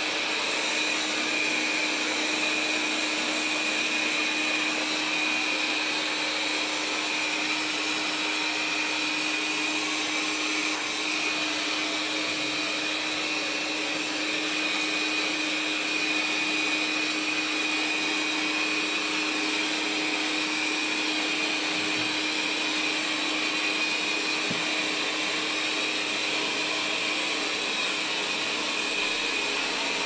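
Roidmi Eva robot vacuum-mop running on its second, mopping pass: a steady motor whir with a constant high whine.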